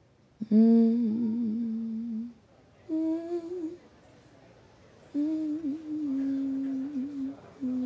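A woman's voice humming a slow, wordless melody in long held notes with small wavering turns, in three phrases with short breaks, a fourth starting near the end.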